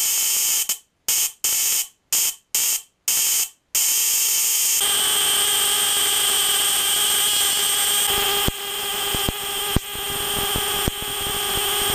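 Continuous high-voltage sparking of two surface-discharge turbine igniter plugs driven by 12-volt continuous-spark ignition modules: a steady, high-pitched electrical buzz, cutting out several times in the first few seconds and joined by a few sharp clicks near the end. The sparking shows the plugs firing and the leads not shorted.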